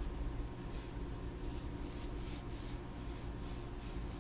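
Shop towel rubbed along an oiled steel camshaft, a soft swish with each wiping stroke, repeating every half second or so over a steady low background hum.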